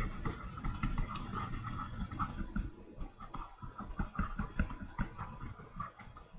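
Stylus tapping and scratching on a tablet screen while words are handwritten, a run of small irregular taps that grows fainter toward the end.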